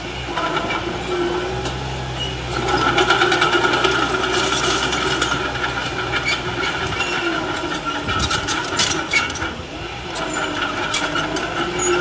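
Small crawler bulldozer's diesel engine running under load as its blade pushes soil, with a steady metallic whine and scattered clanks from the steel tracks. The low engine note falls away for a few seconds past the middle and comes back near the end.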